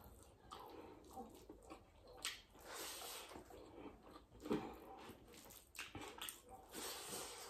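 Close-miked mouth sounds of someone eating rice and curry: chewing and lip smacking, a string of small wet clicks, with soft squelches of rice being mixed by hand on the plate. A soft hiss rises around three seconds in and again near the end.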